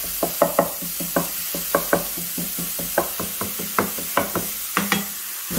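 A wooden spatula tapping and scraping quickly and irregularly against a non-stick frying pan as ground beef, onion and red pepper are mashed and stirred, over a steady sizzle of the mixture frying.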